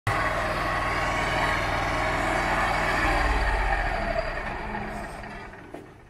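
A motor running steadily under a loud rushing noise; its low note changes about three seconds in, and the whole sound fades away over the last two seconds.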